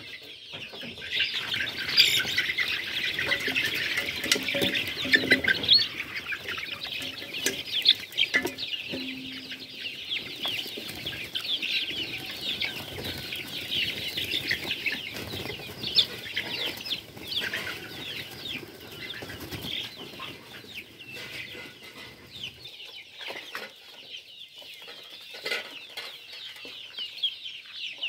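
A flock of young chickens peeping and cheeping in a dense, continuous chorus, with wings flapping as they rush out, and a few sharp knocks. The calling thins out over the last several seconds.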